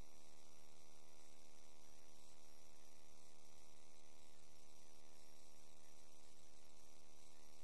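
Steady electrical hum with hiss, unchanging throughout: the recording system of a sewer inspection camera, with no other sound.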